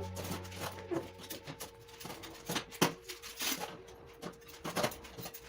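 A scatter of light clicks and knocks at irregular intervals, the loudest a little under 3 seconds in, as of small household objects being handled. The tail of background music fades out at the start.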